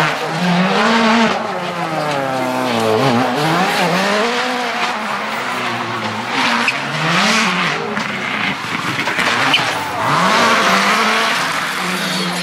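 Rally cars driving a special stage at speed, engines revving hard, the pitch climbing and dropping again and again with gear changes and lifts off the throttle.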